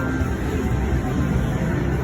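Really loud casino floor noise: slot machine music and electronic tones over a dense, steady din.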